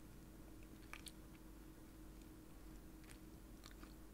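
Near silence broken by a few faint, short crunchy clicks of someone chewing a snack close to the microphone: one about a second in and a small cluster near the end.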